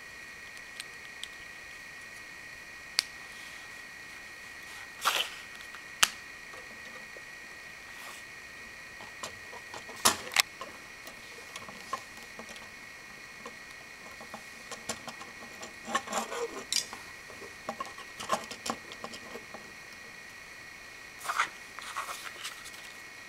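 Plastic Lego Bionicle pieces clicking and snapping as they are handled and pressed together onto the figure: scattered sharp clicks, some in quick clusters, over a faint steady high whine.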